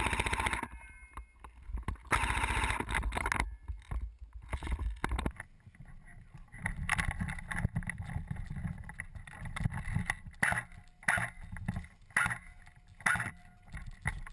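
Wind and handling noise on a body-worn action camera as an airsoft player moves about: loud rustling at first, then a low rumble with a few sharp clicks in the second half.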